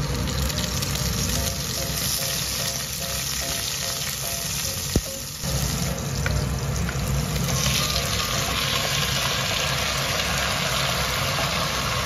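Garlic cloves and cut red chilli frying in hot oil in a clay pot, a steady sizzle. A single sharp click about five seconds in.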